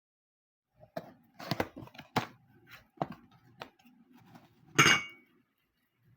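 Dishes and utensils being handled: a series of sharp knocks and clinks, then one louder ringing clink a little before the end.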